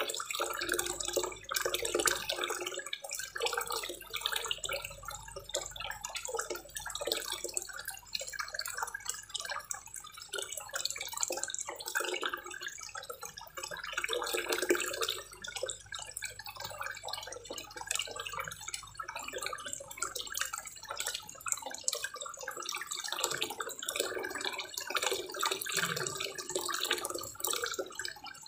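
Water pouring from a small wall-mounted spillway waterfall into a koi pond, a steady splashing and trickling.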